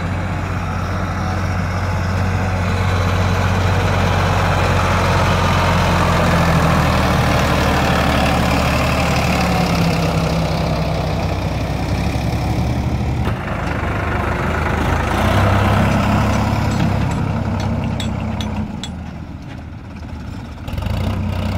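Farm tractor's diesel engine running hard, pulling a loaded trolley, its note rising and falling with the load. A few sharp clicks and knocks come near the end.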